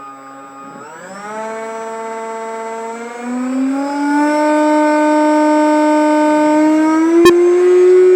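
The stock 4300 kV brushless motor and 64 mm electric ducted fan of a Stinger 64 RC jet, run on a 3-cell battery, whining as the throttle is opened, stepping up in pitch and loudness toward a high, steady wide-open whine. A single sharp click about seven seconds in.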